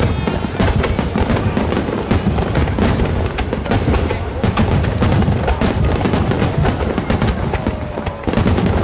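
Star-mine fireworks barrage: shells bursting in rapid, overlapping succession, a continuous run of booms and sharp crackling. Music plays underneath.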